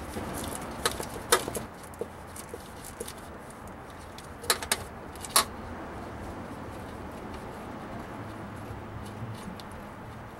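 Scattered metal clicks and clinks from an M12 x 1.75 thread chaser being worked by hand, with a ratchet, into a bolt hole in a Cummins 6BT's cast-iron block to clean the threads. The sharpest clinks come about a second in and again around four and a half to five and a half seconds in.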